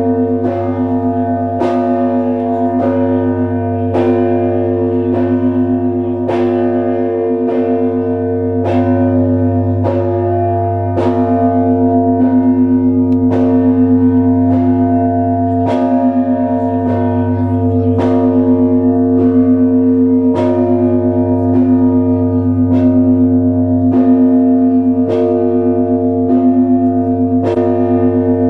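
Orthodox church bells of the Trinity-Sergius Lavra belfry ringing together: smaller bells struck in a quick, even rhythm of a little over one strike a second over the long, deep hum of a large bell. The large bell swells again a few times along the way.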